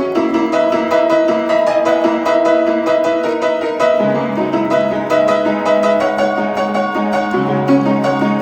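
Instrumental music: quick, evenly repeated notes over held chords, with a sustained low note coming in about halfway through.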